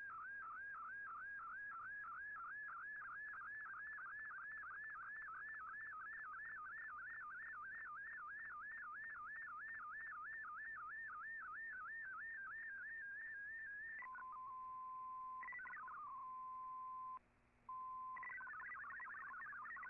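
Digital image signal from a shortwave data broadcast: a single tone warbling up and down several times a second as the picture is sent line by line. About fourteen seconds in it gives way to a steady tone with a brief dropout, and near the end the fast hopping tones of MFSK text data begin.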